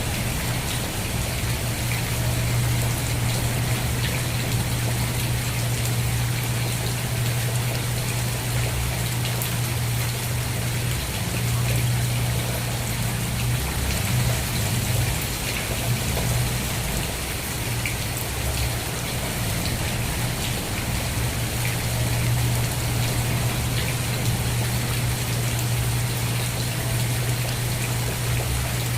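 Steady rain, with many fine drops pattering, over a steady low rumble.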